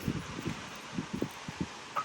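Quiet handling noise: rustling and a few light knocks from parts being moved by hand.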